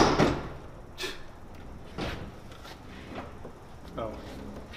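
A Dodge Durango's rear liftgate slams shut with one loud thud at the start, followed by a few faint knocks.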